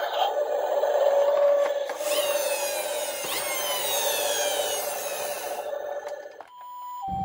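Toy minicar running across a hard surface: a steady rasping whir that cuts off suddenly about six and a half seconds in.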